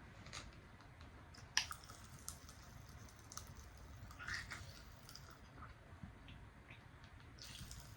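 Pop Rocks candy popping and crackling in the mouth: faint, scattered little pops and clicks over mouth and chewing sounds, with one sharper click about a second and a half in.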